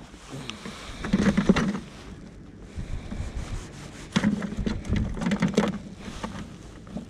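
A knife cutting bait on a hard, wet surface: two spells of sharp chopping and handling noise, one about a second in and another around four seconds in.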